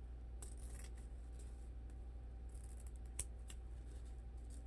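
Scissors cutting through wired ribbon: a few short, sharp snips as the ribbon end is cut off at an angle.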